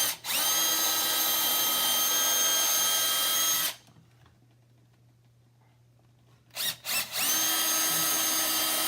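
Electric drill with a 9/64 bit widening a pilot hole in a wooden cabinet. Two runs of about three and a half seconds each, separated by a quiet pause of about three seconds. Each run opens with a few quick trigger blips, then the motor whine climbs to full speed and holds steady.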